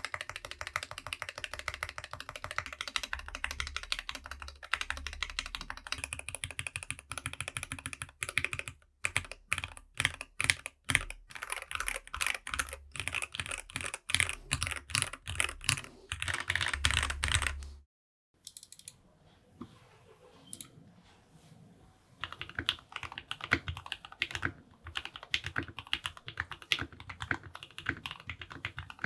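Fast typing on a Keychron K6 Pro mechanical keyboard in stock form, with Gateron Red Pro linear switches. The typing stops suddenly about two-thirds of the way through. After a short pause with a few light taps, typing resumes on the modded board, which has lubed Gateron Oil King switches, an FR4 plate, a tape mod and PBTfans keycaps. The modded board sounds quieter, with less low thud.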